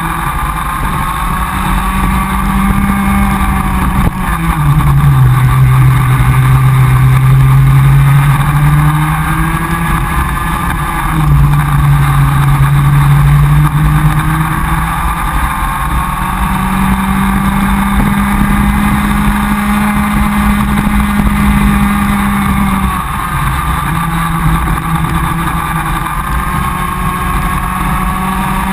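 Comer cadet two-stroke kart engine running flat out, heard from the driver's seat, its pitch dropping as the kart slows for corners and climbing again along the straights.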